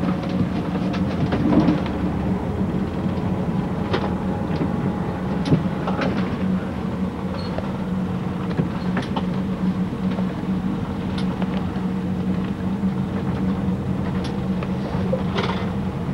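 City bus engine running steadily, heard from inside the bus, with a low even hum and a few short knocks and rattles scattered through it.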